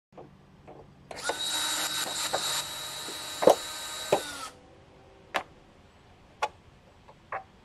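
Power drill running in one burst of about three and a half seconds, with two sharp knocks during it. A few separate sharp clicks follow after it stops.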